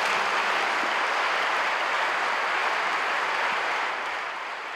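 Audience applauding, a steady clapping that begins to fade near the end.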